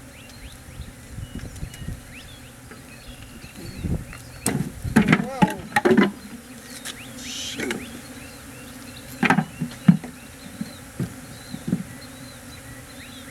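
Honey bees buzzing steadily around an open hive. Over the middle of the stretch come a series of knocks, scrapes and creaks, the loudest part, which fit wooden hive frames and boxes being handled.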